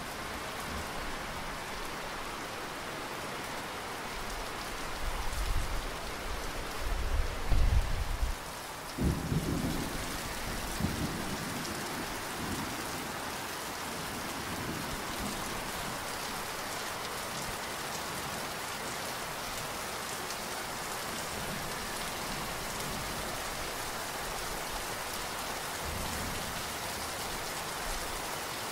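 Steady heavy rain falling, with a roll of thunder between about five and eleven seconds in, loudest around eight seconds, and a faint low rumble of thunder again near the end.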